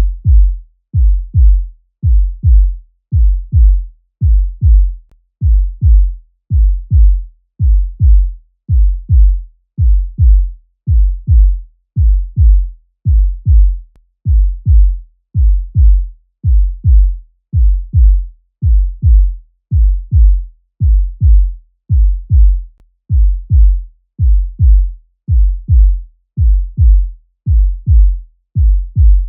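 Human heartbeat sound effect: low lub-dub double thumps repeating at a steady pace, about one pair a second, with no change in rhythm.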